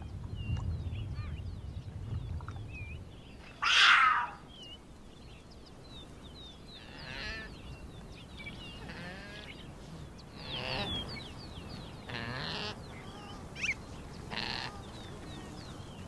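Puma cubs calling: many short high chirps, with wavering bleat-like mews in the second half. One louder, harsher call comes about four seconds in.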